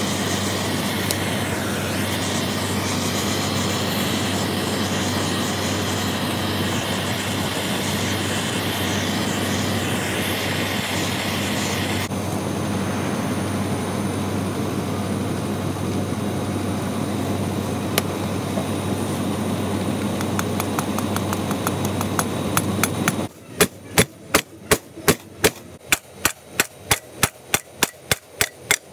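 Gas torch running with a steady hissing roar as it heats the aluminium crankcase's bearing bore, then, about 23 seconds in, a run of sharp hammer strikes on metal at about four a second, tapping a chilled bearing into the heated case.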